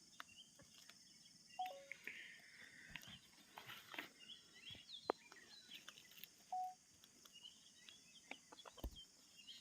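Faint, scattered chirping of birds, many short high chirps and quick pitch glides, with a brief lower call heard twice.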